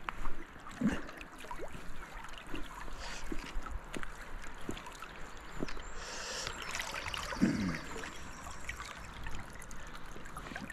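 River water trickling and lapping close by around a wading angler, with scattered small splashes and knocks.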